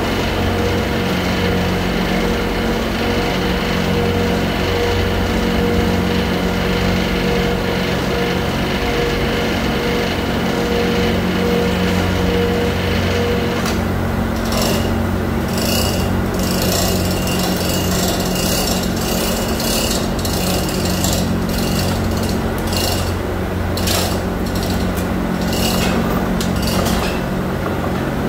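Steady drone of factory machinery. From about halfway, an electric chain hoist starts and stops in repeated short bursts as it shifts a heavy steel mold, with the chain rattling.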